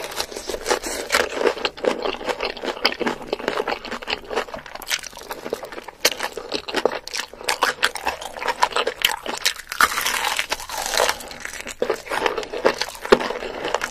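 Close-miked eating of crispy fried chicken: dense, irregular crunching and crackling as the batter coating is bitten and chewed.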